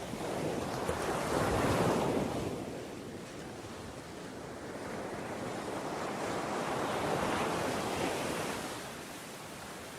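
Ocean waves breaking and washing up, two swells of surf about five seconds apart, with a steady hiss between them.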